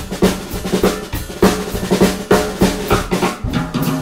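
Background music: a drum-led passage of fast, evenly spaced drum hits with a few held notes underneath.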